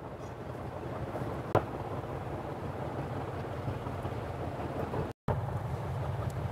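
Steady low hum with a hiss over it, and one sharp click about a second and a half in; the sound cuts out for an instant near the end.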